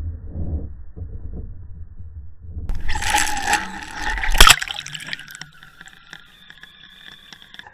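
A low, muffled rumble, then loud splashing ending in one sharp splash as a small underwater action camera on a fishing line plunges into the water. After it, the sound turns muffled underwater, with a faint steady hum and small clicks.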